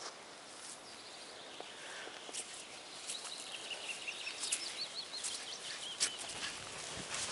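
Faint footsteps of a man and a puppy on grass, with a few soft clicks. A bird sings a wavering call from about three seconds in.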